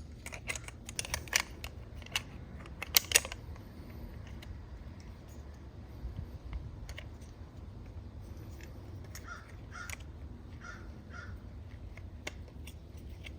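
Sharp clicks and taps of small plastic and metal parts being handled and fitted on a C3 Corvette HVAC control panel, a quick cluster in the first few seconds, then sparser.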